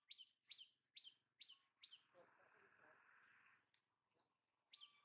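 Faint bird chirps repeated about twice a second, each a quick falling note. They pause for a couple of seconds in the middle, where a soft hiss takes over, and start again near the end.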